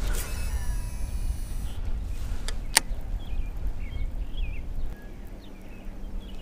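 A cast with a baitcasting rod and reel: a swish, then the spool whirring thinly for about a second and a half, followed by two sharp clicks. A small bird then chirps repeatedly in short calls, over a steady low rumble of wind on the microphone.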